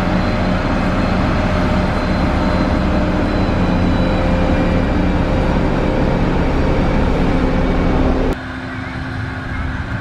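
Heavy diesel engines of a SANY motor grader and a road roller running steadily under load as the grader spreads gravel. The sound drops suddenly to a quieter steady engine hum about eight seconds in.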